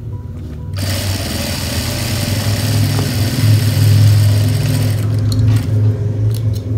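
Jack F4 industrial direct-drive lockstitch sewing machine running steadily as it stitches a seam through quilted fabric layers. It picks up speed and grows louder about a second in.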